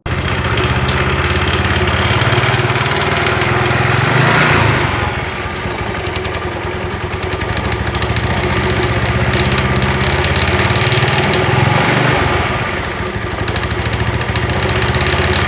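Yamaha Mio Sporty scooter's single-cylinder engine and CVT running, revved up briefly about four seconds in and again near twelve seconds, then settling back. The scooter's owner complains of a rough clicking noise from the CVT, which the mechanic traces to a badly worn front pulley (roller housing) and bushing.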